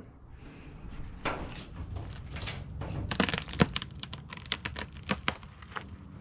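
Irregular sharp cracks and snaps, thickest in the middle of the stretch: roots breaking as a loosened tree is pulled out of the dug-out ground.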